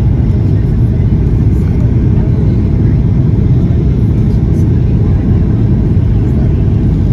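Steady, loud low rumble of a Boeing 737-800 heard inside the passenger cabin: engine and airflow noise.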